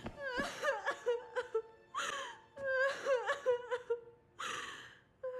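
A girl whimpering and sobbing in short broken cries, with gasping breaths between them.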